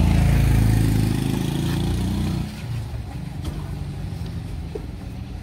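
A motor vehicle's engine running, loud for the first two seconds and then dropping to a lower, steady level about two and a half seconds in.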